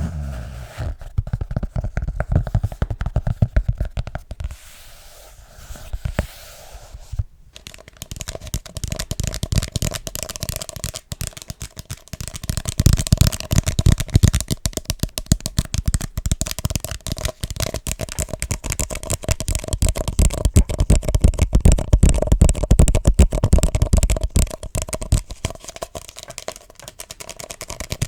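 Rapid ASMR tapping on objects, a dense stream of many small taps a second. There is a brief pause about seven seconds in, and the taps get louder from about twelve seconds on.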